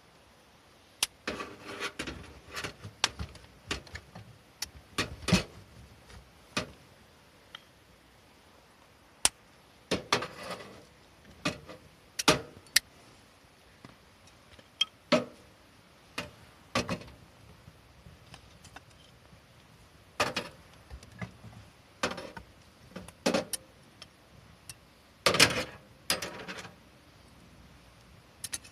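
Camp gear being handled: irregular clinks, knocks and rustles in scattered bursts, with quiet gaps between them.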